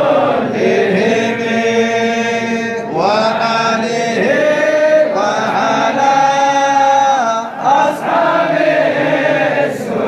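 A group of men chanting together in unison, holding long notes and gliding between pitches without pause.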